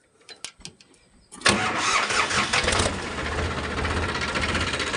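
Sonalika DI 745 III tractor's three-cylinder diesel engine cold-started after standing for two days: a few light clicks, then about a second and a half in it catches and runs, settling into a steady idle.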